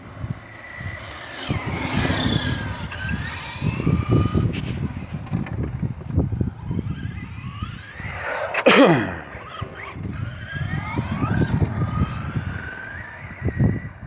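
Electric motor of an RC drag truck whining as it is throttled up and down, its pitch rising and falling, over rough tyre and drivetrain noise. About nine seconds in comes the loudest moment, a burst of whine whose pitch drops sharply.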